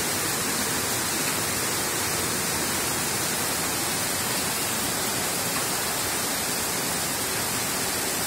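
Torrential rain pouring down in a steady, even hiss, very strong rain, like water from a bucket.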